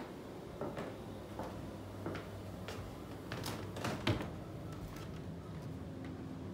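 Footsteps and light knocks as someone walks through a flat, a step about every two-thirds of a second. A tighter run of louder clicks comes between three and four seconds in, the loudest just after four seconds, over a low steady hum.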